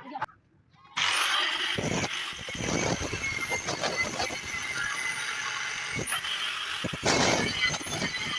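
Angle grinder running: it starts abruptly about a second in, its motor whine rising, and rises again near six seconds, over a dense clatter of knocks.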